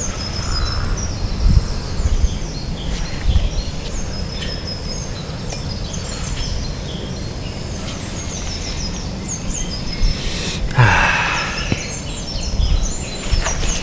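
Woodland birds chirping, many short high calls coming and going over a steady low rumble, with a brief louder rushing noise about eleven seconds in.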